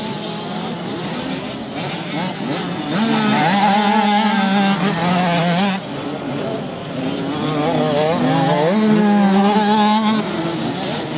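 Several 65cc two-stroke minicross motorcycles racing close by, their engines revving up and down through the corners. Two louder passes, about three seconds in and again near the end, where an engine note holds steady and then wavers in pitch.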